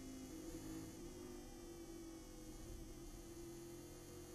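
Race car engine heard from inside the cockpit as a faint, muffled, steady drone while the car slows for a corner.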